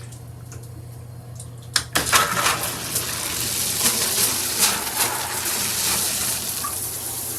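A sharp click about two seconds in, and water suddenly starts spraying from a dual shower head, then runs on as a steady hiss of spray.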